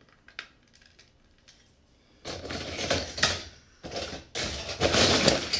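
A few light clicks of plastic Lego pieces being handled. Then, about two seconds in, loose Lego bricks clatter and rattle loudly as a hand rummages through a container of them, in two spells with a short pause between.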